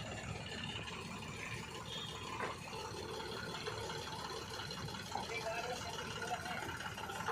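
Steady low rumble of a diesel engine from the earthmoving machinery running, with faint voices talking over it.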